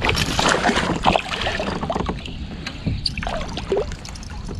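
Knocks, rustles and water noise in and around a kayak while a hooked big pickerel is brought alongside for netting. The short, irregular knocks come scattered throughout.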